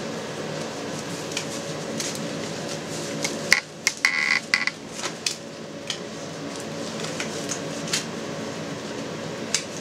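Rubber medical gloves being pulled on over cotton gloves: rubbery rustling with a cluster of short snaps and squeaks about midway and a couple more near the end, over a steady low hum.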